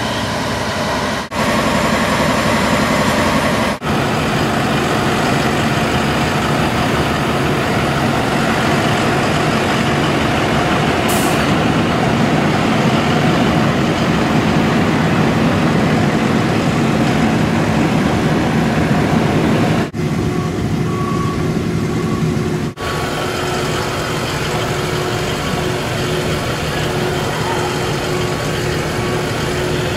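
Fire trucks' diesel engines running at idle at the scene, a loud, steady drone. A brief high hiss about eleven seconds in.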